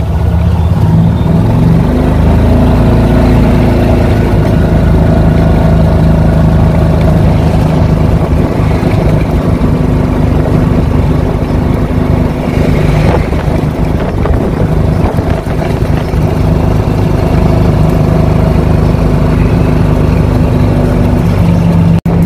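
Golf cart driving along a street: a steady motor drone with several held tones over rumbling road noise.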